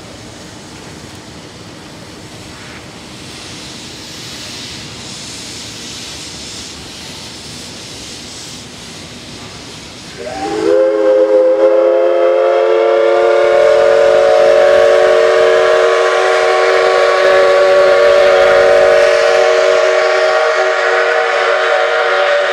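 Steam locomotive C56 160 hissing steam. About ten seconds in, its steam whistle opens with a short upward slide in pitch and then sounds one long, loud, steady blast of about twelve seconds.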